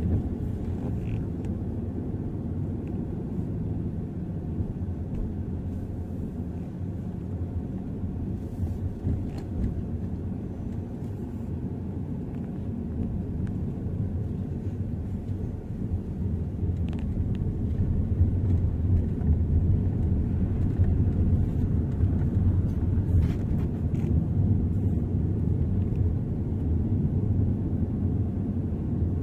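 Steady low rumble, like a moving vehicle's running noise, getting louder about two-thirds of the way in.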